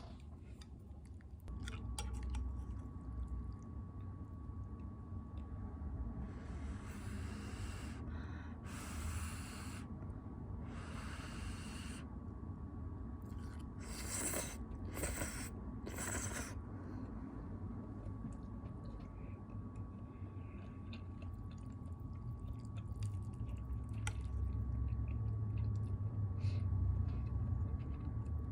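A steady low hum under a faint steady tone. Several short hissing bursts come about a third of the way in, then three quick ones just after the middle.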